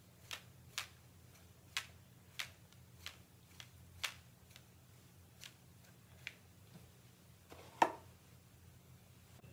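Irregular sharp ticks and taps as paint is flicked off a brush and splatters onto paper, about a dozen in all, with one louder knock near the end.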